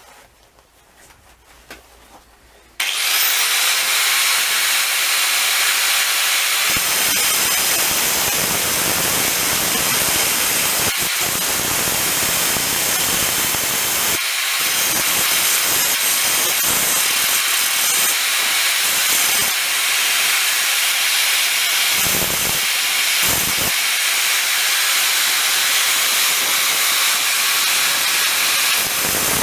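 Grinder cutting into a steel drill bit, shaping it into a spot weld cutter: a loud, steady grinding noise that starts abruptly about three seconds in.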